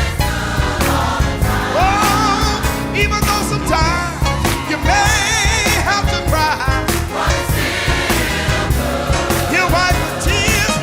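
Gospel music with a choir singing over a steady band beat.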